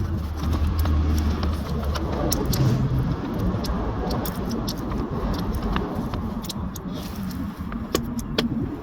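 Scattered sharp metallic clicks and clinks of hand tools and metal parts being handled on a motorcycle sidestand and its pivot bolt, over a low rumble that fades out about two seconds in.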